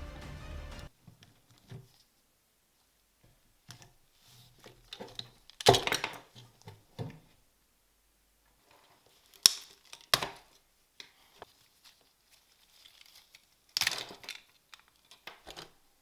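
Scattered knocks, clicks and scrapes of a small model car and its parts being handled on a work surface, with the loudest knocks about six, ten and fourteen seconds in.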